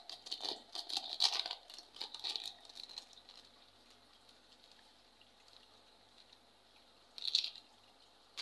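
Thin plastic packaging crinkling and rustling as it is handled and opened, busiest in the first three seconds. A short rustle comes again about seven seconds in.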